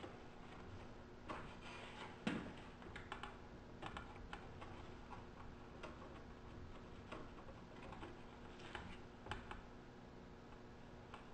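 Faint, scattered clicks and taps as rubber grommets with metal bushings are pushed into the mounting holes of a plastic radiator fan shroud, with the loudest knock about two seconds in. A steady low hum runs underneath.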